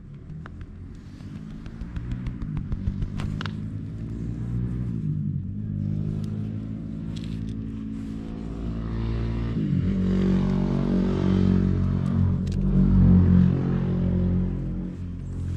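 Cat purring right against the microphone, a low steady rumble that grows louder, with a few clicks and rubbing knocks in the first few seconds as the cat pushes against the camera.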